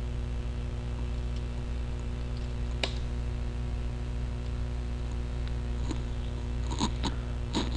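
Steady low electrical hum from the recording setup, with a few sharp clicks: one about three seconds in and three close together near the end.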